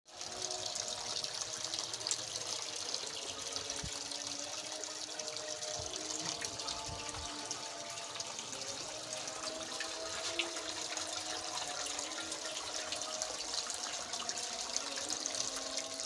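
Water from a cascade fountain of stacked clay pots, pouring from a spouted jug and trickling bowl to bowl into a basin: a steady splashing trickle.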